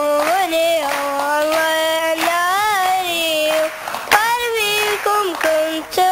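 A young boy singing solo in Arabic, holding long, slightly wavering notes with short breaks between phrases.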